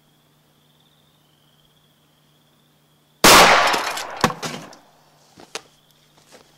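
A single gunshot from a Smith & Wesson Model 10 .38 Special revolver with a 4-inch barrel, firing a Buffalo Bore 158-grain +P load: one sudden loud report about three seconds in that echoes away over a second or so. It is followed by a sharp knock and a few small ticks. Insects chirp steadily throughout.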